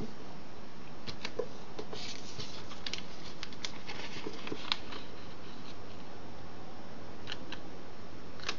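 Origami paper being handled and folded by hand: crisp paper rustles and clicks as the sheet is turned and creased, bunched in the first half with a few more near the end, over a steady hiss.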